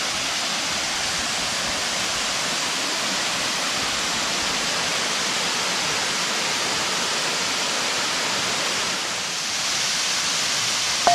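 A waterfall with water pouring down in a steady, unbroken rush.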